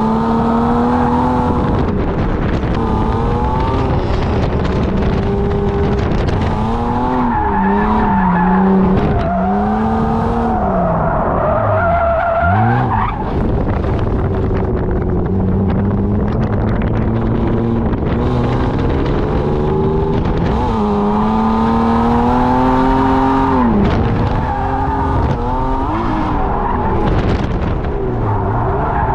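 BMW E36 drift car's engine revving up and down again and again through a drift run, with the tyres scrubbing and squealing and wind noise at the outside-mounted camera. About 13 s in the revs climb sharply, then cut away suddenly.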